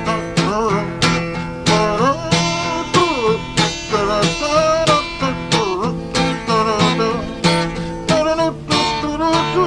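Acoustic guitar music: strummed and plucked chords in a steady rhythm, with some notes bending in pitch.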